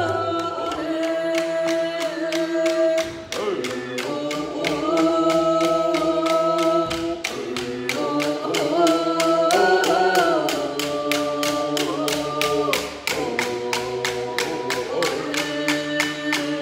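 Group of voices singing a Coast Salish song together in long held notes that shift pitch every few seconds, over a steady beat of hide hand drums struck about three to four times a second.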